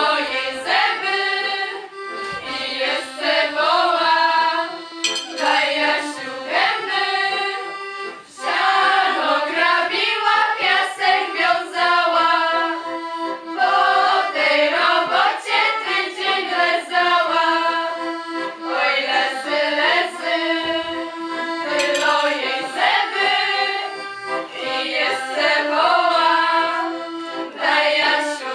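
A group of mixed voices singing a Polish folk wedding song in phrases a few seconds long, with steady held instrumental notes underneath.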